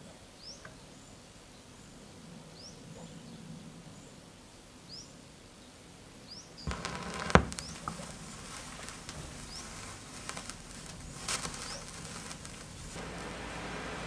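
Needle drop on a vinyl record: about halfway in the turntable's stylus settles into the groove with a sharp click, followed by steady surface hiss and a few crackles from the lead-in groove. A bird chirps at intervals in the background.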